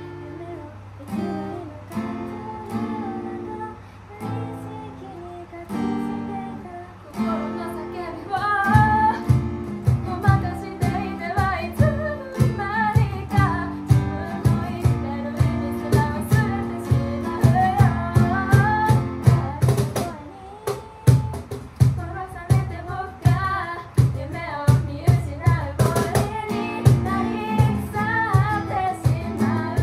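Acoustic guitar strummed under female singing. About eight seconds in, a steady cajón beat joins and the music gets louder.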